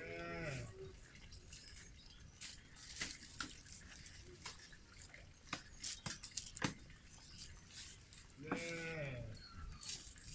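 An animal bleats twice, once at the start and again near the end, each call short and falling in pitch. Between the calls come sharp snaps and cracks of dry twigs being broken and fed into a small wood fire.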